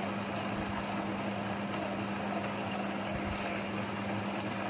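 Ultra Big 2.5-litre tabletop wet grinder running steadily, its stones turning and grinding soaked rice into idli batter, with a constant motor hum.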